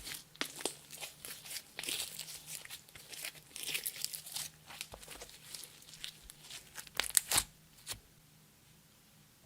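Clear slime with crushed makeup and glitter mixed in, squished and stretched by hand: sticky crackling with many small popping clicks, a few louder pops about seven seconds in, stopping about eight seconds in.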